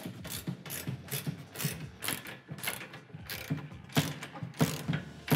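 Hand ratchet wrench clicking in quick back-and-forth strokes, about three a second, as a nut is run down tight on a carriage bolt.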